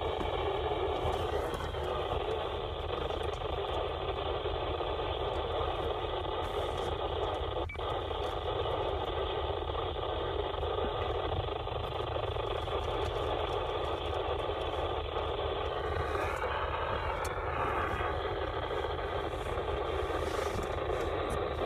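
Radio receiver hissing with static on a weak weather-radio channel, with the broadcast barely coming in under the noise.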